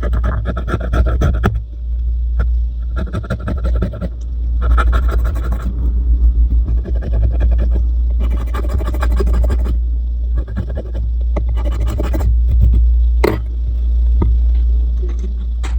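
Metal spatula scraping old adhesive off a phone's frame rim, in repeated strokes of about a second each, with a sharp click about 13 seconds in. A steady low hum runs underneath.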